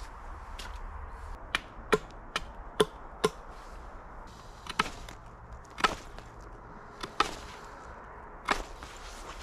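Sharp strikes of a steel blade chopping into wood: a quick run of five about two a second, then a handful of spaced strikes.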